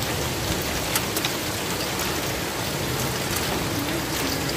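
Heavy rain and hail falling steadily, with scattered sharp ticks of stones striking hard surfaces.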